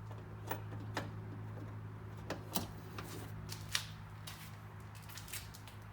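Irregular small metal clicks and taps of a hand tool and screws being fitted into a car door's inner panel, over a low steady hum.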